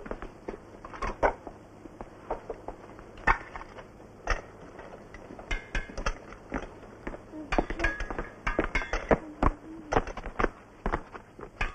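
Irregular knocks and clinks of objects being handled, sometimes several a second, with a few short low tones in the second half.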